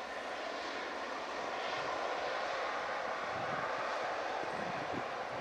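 Airbus A380-841's four Rolls-Royce Trent 900 turbofans running at taxi power on the runway, a steady, continuous rush of jet noise.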